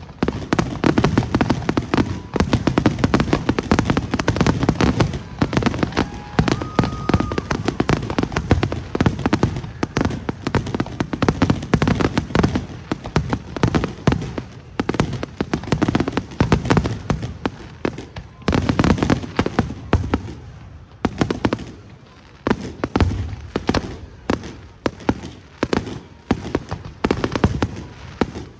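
Aerial fireworks going off in a dense, rapid barrage of cracks and low booms. The barrage thins out briefly about two-thirds of the way through, then picks up again.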